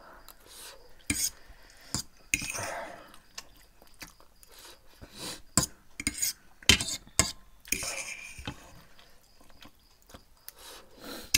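Metal fork clinking and scraping against plates of noodles during eating, in sharp separate clicks with a quick cluster about six to seven seconds in.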